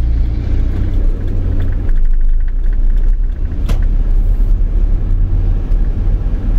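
Car driving along a road: a steady low rumble of engine and road noise. A single sharp click comes a little past the middle.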